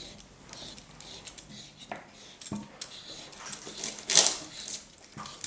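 A kitchen knife chopping on a plastic cutting board: irregular sharp knocks of the blade against the board, with a louder cluster of strokes about four seconds in.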